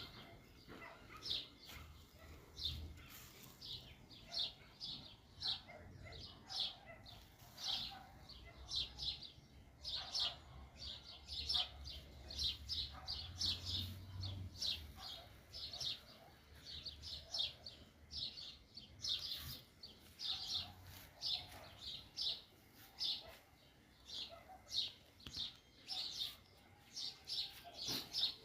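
Small birds chirping continuously, many short high chirps in quick succession, over a faint low rumble.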